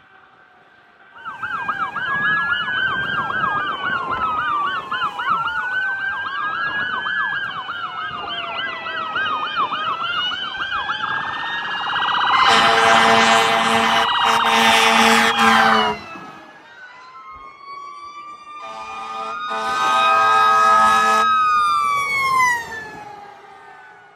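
Fire apparatus sirens wailing and yelping, several overlapping, as the trucks respond to a call. Long steady horn blasts cut in about halfway through and again a few seconds later, and the sirens fade away near the end.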